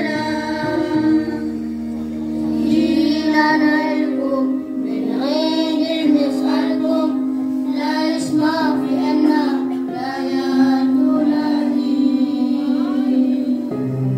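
A song: a high singing voice over backing music with long held chords.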